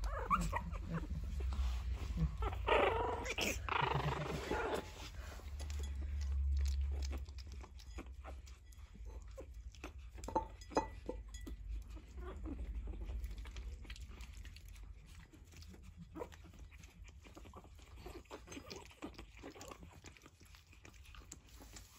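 Pug puppies lapping milk from a plate, a run of small wet licking clicks. Puppy whines and grunts in the first few seconds.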